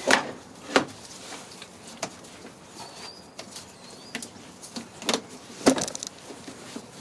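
Scattered sharp clicks and knocks of hands and tools working plastic electrical connectors and intake parts loose in a car's engine bay, about six of them, the loudest near the end.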